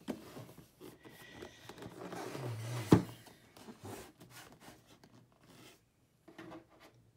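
Cardboard Nikkor lens box handled and turned over on a wooden tabletop: rubbing, sliding and small clicks, with one sharp knock about three seconds in, then quieter handling.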